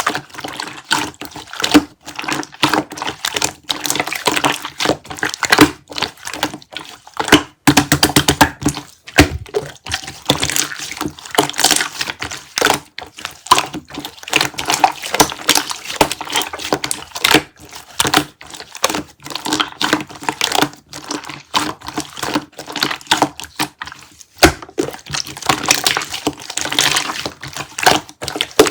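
Melted kiwi konjac jelly making wet, sticky squelching and crackling sounds, a dense irregular run of quick crackles throughout.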